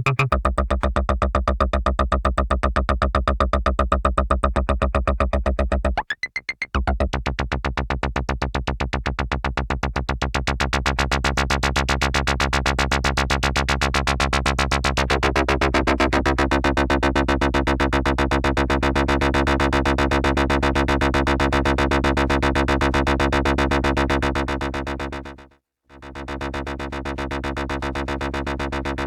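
Behringer MonoPoly analog synthesizer holding a low, buzzy drone with a fast, even pulsing. It cuts out briefly about six seconds in and again near the end.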